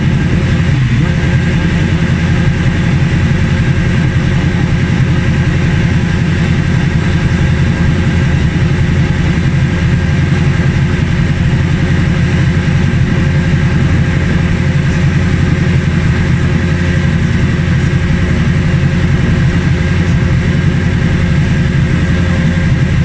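Zytek V8 racing engine in a Ferrari F355 GT hill-climb car idling steadily at an even, unchanging pitch, heard close behind the car at its exhaust.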